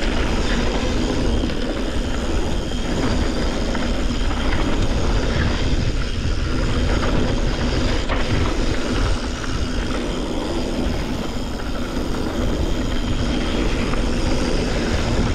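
Yeti SB140 mountain bike riding fast down a downhill trail: steady wind noise on the microphone mixed with tyres rumbling over dirt and rock and the bike rattling.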